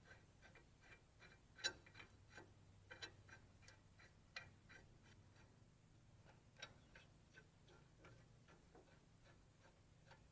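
Faint, irregular light clicking of a hand ratchet as the rear brake caliper bracket bolts are run in, a few clicks a second with short pauses between runs.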